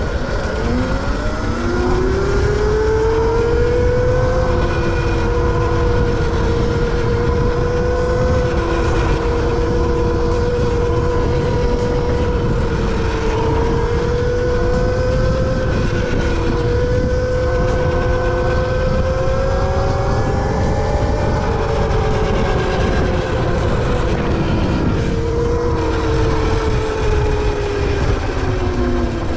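Valtinsu EM5 Pro mini bike's motor whining as the bike speeds up over the first couple of seconds, then holding a steady pitch at cruising speed. It eases off and picks up again about three-quarters through, and winds down near the end. Wind rushes over the microphone throughout.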